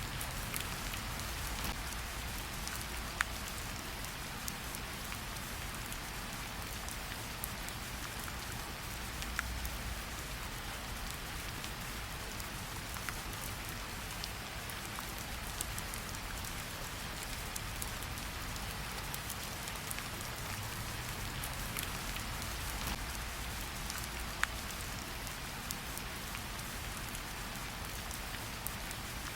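Steady rain falling, with an even hiss and the sharp ticks of individual drops striking a surface here and there, over a faint low rumble.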